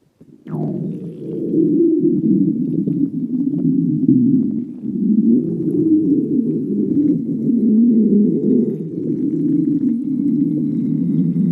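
A person's stomach growling: a loud, continuous, wavering gurgling rumble that keeps going without a break. It opens with a brief falling squeak about half a second in.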